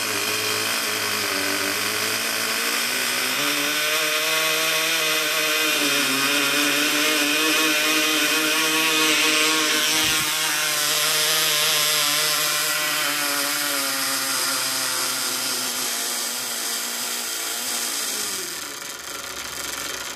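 Cox .020 model glow engine running with a steady buzzing drone, its pitch wavering and stepping up a few seconds in. Near the end it slows with falling pitch and cuts out, which the owner blames on the spring starter hitting the propeller.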